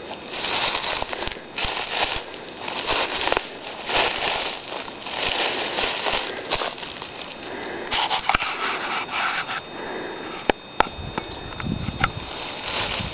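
Footsteps crunching through dry leaf litter, about one step a second, with two sharp snaps about two-thirds of the way through.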